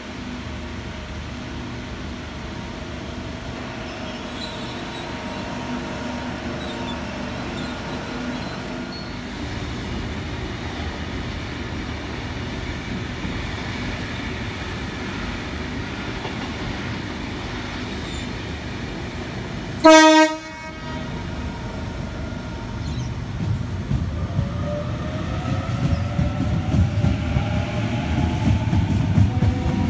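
A Sydney Trains Waratah electric double-deck train: a steady hum while it stands, then one short, loud horn blast about two-thirds of the way through. It then pulls away, its motor whine rising in pitch and the wheel rumble growing louder.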